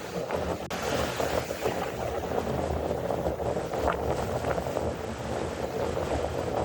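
Strong wind buffeting the microphone over the steady wash of sea waves, with a brighter rush about a second in.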